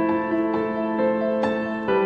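Background music: a soft, slow piano melody with sustained notes.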